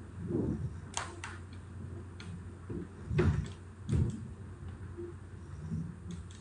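Scattered sharp computer mouse clicks, with a few dull knocks, over a steady low hum.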